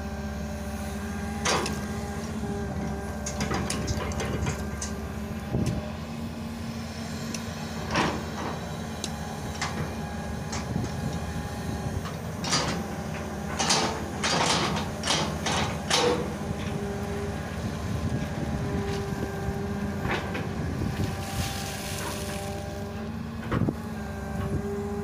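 Hitachi long-reach excavator's diesel engine running steadily under hydraulic load as it digs and swings mud, with repeated sharp metal knocks and clanks from the bucket and boom linkage, coming thickest about halfway through.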